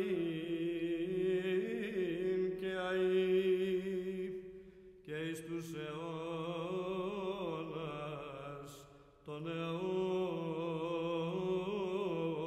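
Greek Orthodox Byzantine chant: a sung melody over a steady held drone note (ison). The singing pauses briefly twice for breath, at about five and nine seconds in.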